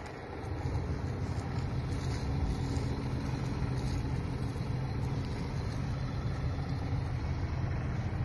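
Tractor diesel engines running steadily with a low, even rumble.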